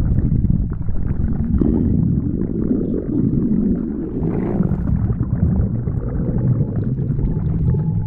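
A person's stomach growling: a long, continuous low gurgling rumble that churns without a break.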